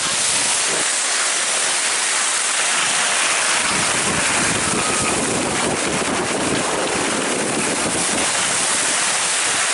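Skis sliding and scraping over packed snow during a downhill run, with wind on the microphone; a deeper wind rumble joins about three seconds in.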